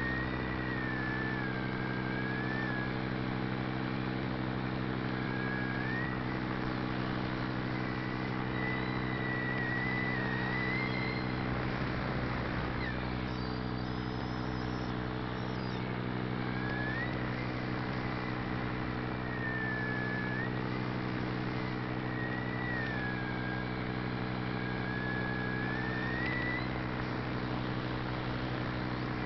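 Aircraft motor and propeller running at a steady speed, heard from on board in flight, with a rush of air and a thin whine that slowly rises and falls in pitch.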